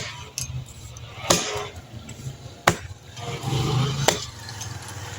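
Wood being chopped by hand with a bladed tool: four sharp blows, about one every second and a half.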